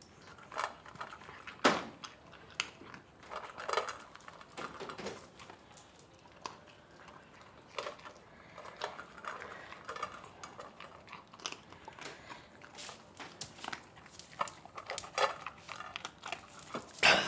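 Dog eating: irregular clinks and clicks against a bowl with chewing and crunching, and a louder knock about a second and a half in.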